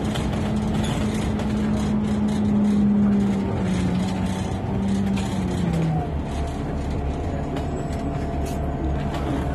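Bus engine and drivetrain heard from inside the passenger cabin: a steady hum that drops in pitch in a few steps over the first several seconds, then a low engine rumble as the bus carries on.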